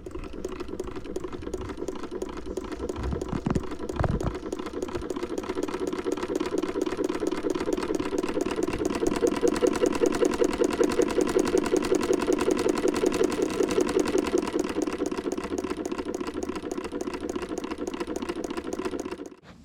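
Sailrite Ultrafeed LSZ1 walking-foot sewing machine running and stitching: a fast, even clatter of the needle mechanism over a steady motor hum. It stops suddenly just before the end.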